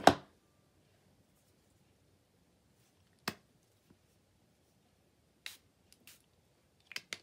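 Small craft supplies being handled and set down on a glass craft mat: a loud sharp click at the very start, then a few scattered light clicks and taps, two close together near the end.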